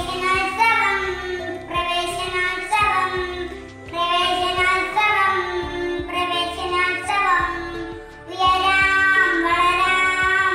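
A young girl singing a song in phrases of a few seconds, with short breaths between them about four and eight seconds in. She sings over a steady instrumental accompaniment of held chords.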